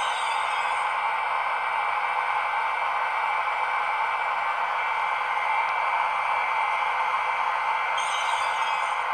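Sound decoder in an H0 model of an FS E402 electric locomotive playing a steady recorded running hum of the real locomotive through the model's small loudspeaker, with a steady high tone in it. A brief high hiss comes at the start and again near the end.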